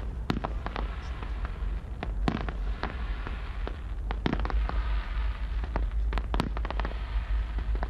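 Aerial fireworks display: an uneven run of shell bursts, about two bangs a second, with crackling between them over a steady low rumble.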